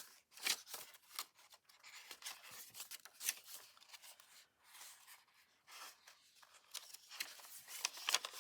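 Paper pages being handled and shuffled: irregular rustling and crinkling with a few small sharp clicks, the loudest about half a second in and near the end.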